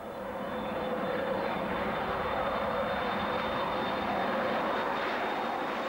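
BAC One-Eleven jet airliner taking off, its two Rolls-Royce Spey turbofans at take-off power: a steady jet roar that swells in over the first second.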